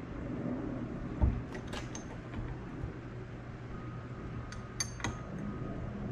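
Light metallic clinks of a hand wrench against the old rear shock absorber's top nut and mount as the nut is worked loose, with a dull thump about a second in and sharper ringing clinks near the end.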